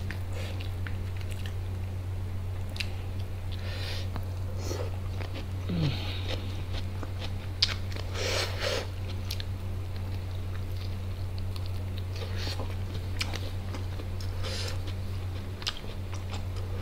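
Close-miked chewing, lip smacks and small mouth clicks of biryani rice being eaten by hand, with one sharper click about halfway through. A steady low hum runs underneath.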